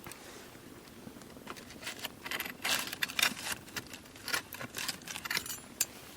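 Wood fire crackling, with a quick run of sharp snaps and pops from burning wood that starts about a second and a half in and fades out near the end.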